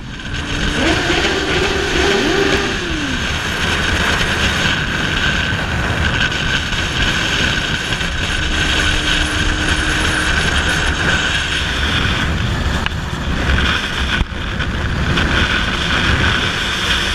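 Motorcycle riding at speed, picked up by a bike-mounted camera: steady rushing wind noise over the running engine, with a brief rise and fall in engine pitch a second or two in.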